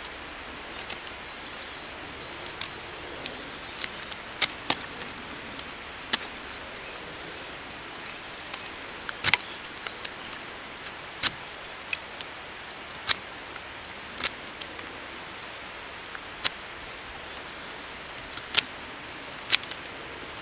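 Bushcraft neck knife power-cutting into wood in a full-hand grip: a series of short, sharp cutting strokes at irregular intervals, roughly one a second, over a faint steady outdoor hiss.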